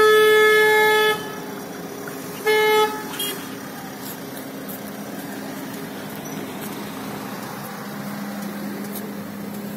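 Vehicle horn honking: one long blast of about a second, then a short second honk about two and a half seconds in, each at a steady, unchanging pitch. A low steady hum follows.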